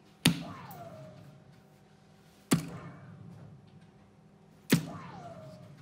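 Three soft-tip darts hitting a segmented plastic electronic dartboard about two seconds apart, each a sharp tap as it lands in the bull. A faint falling tone follows the first and last hits.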